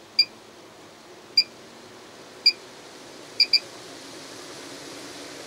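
Maxxair 7500K roof vent fan giving five short high beeps as its speed is stepped up from the remote, the last two close together, while its rushing air noise grows steadily louder.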